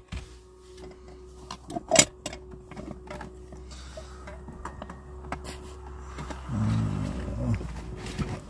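Objects being handled and knocked about inside a car, with a sharp knock about two seconds in, over a low steady rumble. Near the end a man gives a low grunt lasting about a second.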